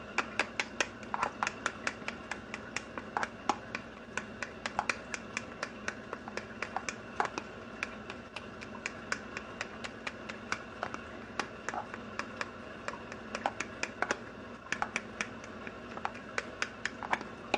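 Quick, irregular clicking and tapping of a utensil stirring against a plastic container, several taps a second: gelatin being stirred into hot water to dissolve its clumps.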